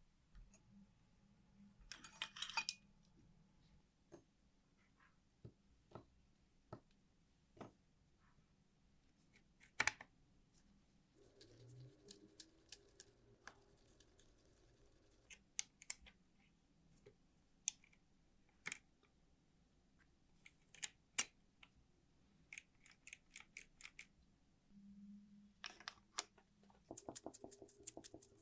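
Small metal parts being handled during work on a mechanical calculator: scattered sharp clicks and light taps, some in short clusters, ending in a quick run of rapid clicks.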